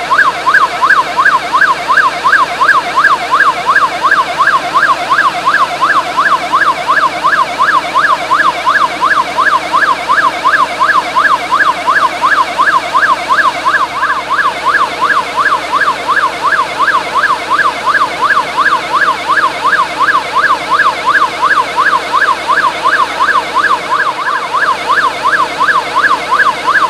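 Loud electronic siren-like warble: a tone sweeping rapidly up and down, about four times a second, held steady and unchanging throughout.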